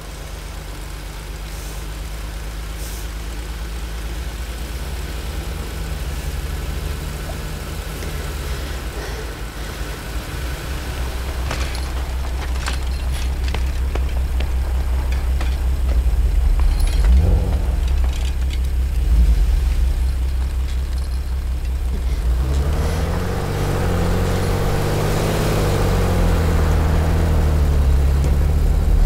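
A car engine running with a low, steady rumble that slowly grows louder, its pitch wavering up and down in the last few seconds.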